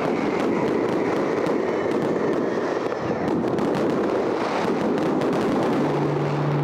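Many fireworks and firecrackers going off at once, a dense, continuous crackle of pops and bangs.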